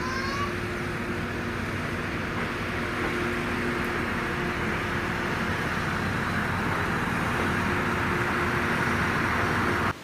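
Two-car KiHa E130-series diesel railcar running past, a steady engine drone over the rolling noise of wheels on rails, growing slightly louder before it cuts off suddenly just before the end.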